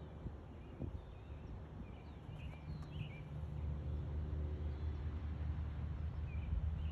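Small birds chirping briefly in two spells, about two and a half seconds in and again near the end, over a steady low rumble that grows louder after about three seconds.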